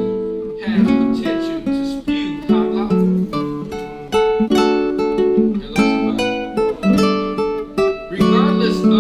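Music: a plucked string instrument, sounding like guitar, playing chords struck about once or twice a second, each ringing and fading.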